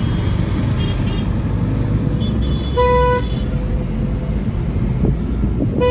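City road traffic with car horns honking. Two short high toots come in the first half, a longer horn about three seconds in and another near the end, all over a steady low traffic rumble.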